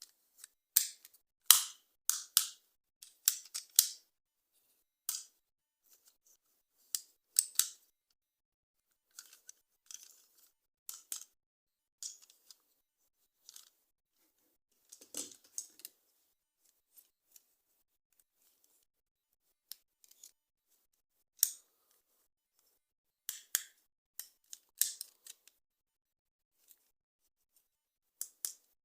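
Toy packaging being handled and opened: scattered short, crisp clicks and crackles in clusters, with silent gaps between them.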